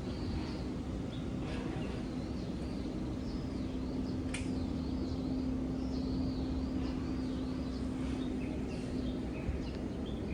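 Small birds calling over and over in short, high chirps and warbles, over a steady low hum and rumble. A single sharp click comes about four seconds in.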